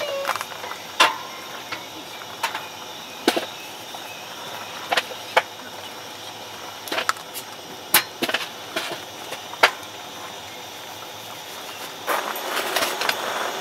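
Two small dogs eating dry kibble from bowls: irregular sharp crunches and clicks a second or so apart over a steady hiss, with a denser stretch of noise near the end.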